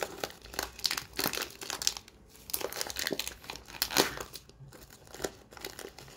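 Packaging on a tub of play dough crinkling and tearing as it is picked at and pulled open by hand, a run of irregular crackles with a sharper snap about four seconds in.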